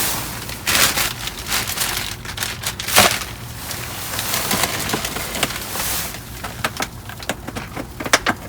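Rummaging through trash in a dumpster: bags and boxes being shifted, with crackling, crinkling and scattered clicks and knocks, the loudest crunches about one and three seconds in.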